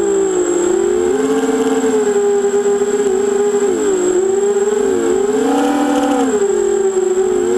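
FPV quadcopter's electric motors whining, the pitch sweeping up and down in quick swoops as the throttle changes.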